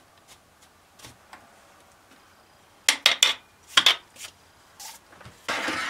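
Cast-iron dust being brushed off a metal lathe's bedways by hand. There is a cluster of sharp metallic clinks about three seconds in, another a second later, and a longer brushing scrape near the end.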